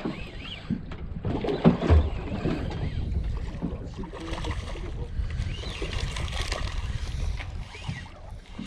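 Sea water slapping against the hull of a small boat, while a spinning reel is cranked to wind a hooked fish in. There are a couple of thumps about two seconds in.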